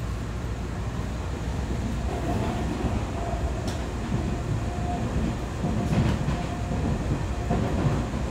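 Interior noise of an EMU3000 electric multiple-unit train on the move: a steady low rumble from the wheels and running gear, with a faint whine that comes and goes and a few light clicks.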